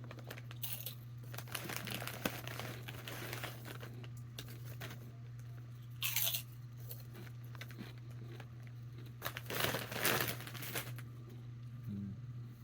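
Chip bag crinkling and rustling as it is handled, in irregular bursts, loudest about six seconds in and again around ten seconds; a steady low hum sits underneath.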